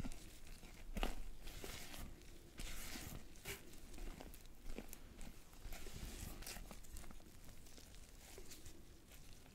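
Silicone spatula folding and scraping macaron batter around a glass bowl: irregular wet swishing and scraping strokes, with a louder knock against the bowl about a second in. This is the folding of almond and sugar powder and yellow colouring into meringue.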